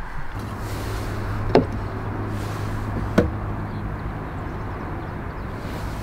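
Two sharp knocks about a second and a half apart, over a steady low hum that starts just after the beginning.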